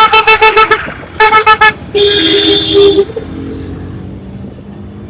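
Vehicle horn honking: two runs of rapid short beeps, then one held blast of about a second. After it, only fainter road noise remains.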